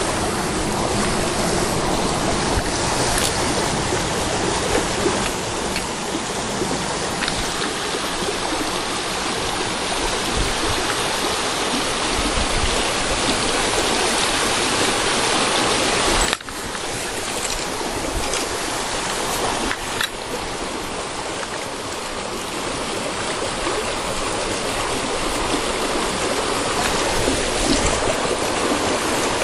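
Fast-flowing stream water rushing steadily, with a short drop in level a little past halfway.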